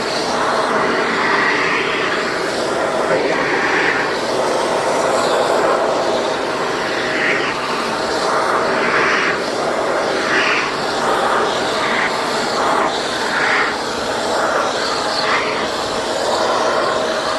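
Shark Navigator upright vacuum cleaner running, a steady whine over rushing suction, with the hose attachment working carpeted steps; the suction sound swells briefly about once a second as the nozzle is moved over the carpet.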